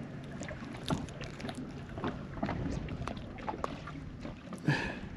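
Wind on the microphone over the low wash of water around a small boat, with scattered light clicks and knocks.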